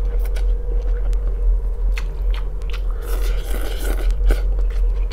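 Instant vermicelli noodles being slurped and chewed, with one long slurp about three seconds in and a few sharp clicks, over a steady low hum.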